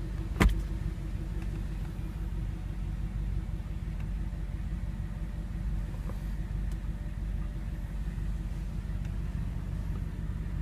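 2009 Audi R8's 4.2-litre V8 idling steadily, heard from inside the cabin as a low rumble, with one sharp click about half a second in.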